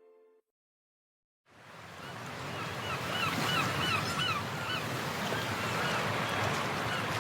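The last notes of background music, a second of silence, then a steady rushing outdoor noise. A quick run of short, repeated chirping calls sounds over the rushing a second or two after it starts.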